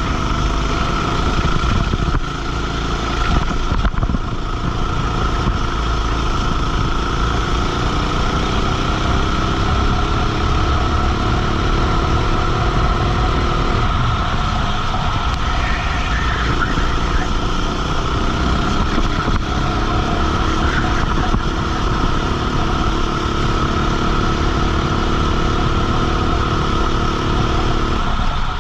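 Race kart engine heard onboard at racing speed, its pitch climbing steadily for about ten seconds, dropping sharply about fourteen seconds in as the throttle comes off, then climbing again and dropping near the end. Constant wind and rolling noise runs under it.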